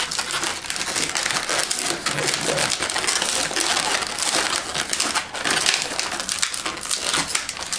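Latex modelling balloons (yellow 260s) rubbing against each other and the hands as they are twisted and locked together: a continuous scratchy rubbing with many small clicks.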